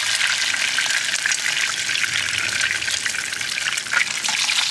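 Eggs frying in hot oil in a nonstick skillet: a steady sizzle with fine crackling.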